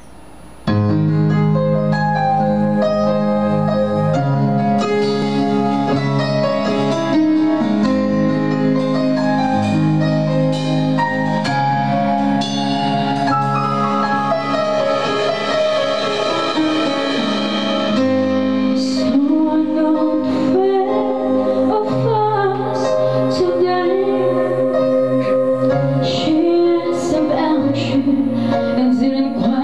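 A live band playing a slow song on keyboards, electric guitar and drums, coming in abruptly about a second in with long held chords. A woman's singing voice joins in the second half.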